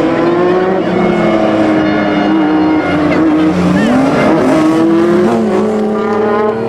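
Rally car engine running at high revs, its pitch dipping briefly about four seconds in and then climbing again.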